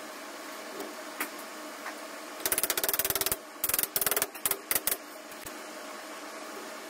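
Small hammer tapping rapidly on a plastic storage-cube wardrobe, knocking its panels and plastic joint connectors together. A fast run of taps starts a couple of seconds in, followed by several shorter flurries and a last single knock.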